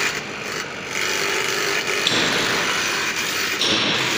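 Electric refrigerant vacuum pump running steadily as it evacuates a car's air-conditioning system through the manifold gauge hoses.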